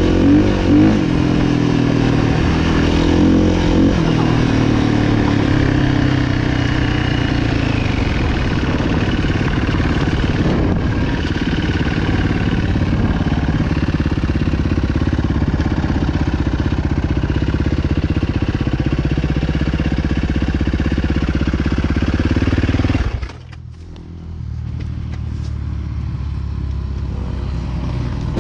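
Motocross motorcycle engines revving, their pitch rising and falling as the bikes ride. About 23 seconds in the sound drops suddenly, then picks back up more quietly.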